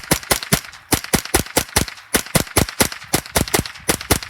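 H&K MP5 .22 LR rifle firing rapid semi-automatic shots, about five a second in a quick, slightly uneven string of sharp cracks.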